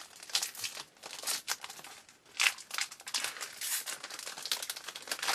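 Foil wrapper of a trading-card pack crinkling as it is torn and peeled open by hand, in a run of short rustles with a brief pause about two seconds in.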